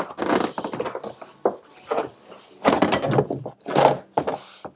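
Plastic interior trim panels being handled and pressed into place: a series of irregular knocks and scrapes.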